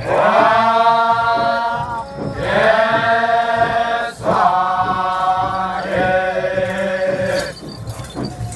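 Naga warriors chanting together in unison: four long held calls, each about two seconds, each swooping up in pitch at its start.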